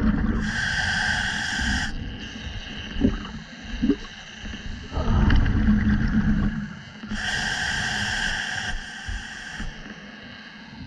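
A scuba diver breathing through a regulator underwater: two long inhalations with a hissing whistle, about half a second in and again around seven seconds, and a rumble of exhaled bubbles in between, around five seconds.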